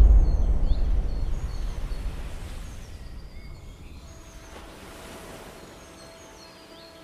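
A deep cinematic boom hit that fades away over about four seconds, with birds chirping over it. About four seconds in, a soft sustained music note begins.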